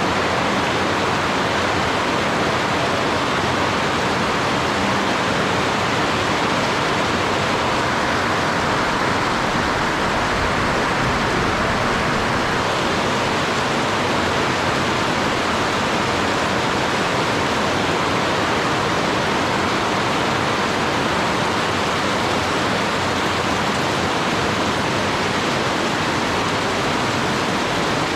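Rain falling steadily, an even, unbroken hiss with no change in strength.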